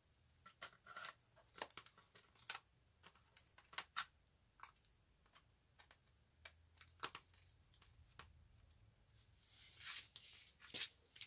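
Screwdriver prying a tablet's plastic back cover off at its seam: a run of sharp clicks and snaps as the case clips give, with a short scrape about ten seconds in.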